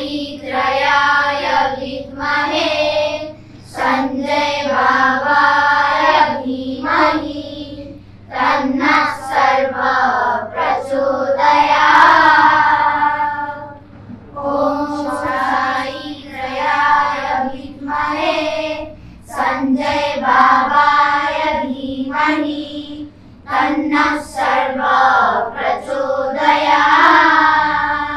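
A group of children singing together in unison, a devotional song in phrases of a few seconds each with short pauses between them.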